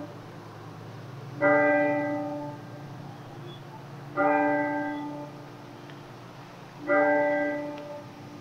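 Church bell chimes tolling slowly: the same single note struck three times about 2.7 seconds apart, each strike ringing on and fading before the next.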